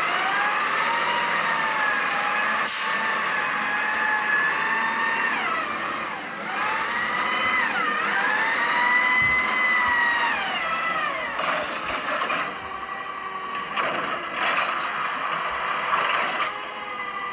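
Natural-gas WM automated side-loader garbage truck: a high, pitched whine that rises and falls with the revs for about the first eleven seconds, dipping sharply twice, then knocks and clanks as the automated arm handles a cart.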